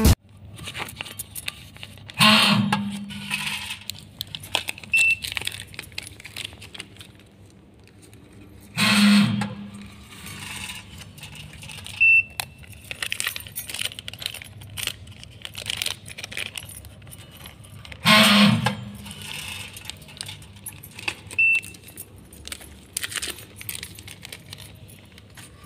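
Benchtop digital-control weighing and filling machine for granules running three dispensing cycles, each a hum with a rush of falling granules lasting about a second. A short high beep comes a few seconds after each cycle, with scattered light clicks in between.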